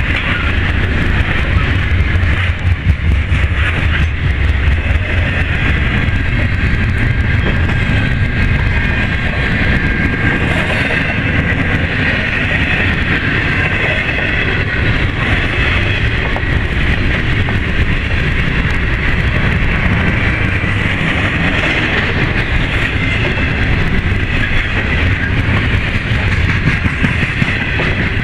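Double-stack container cars of a freight train rolling past close by: a loud, steady rumble of steel wheels on the rails with occasional clicks over rail joints.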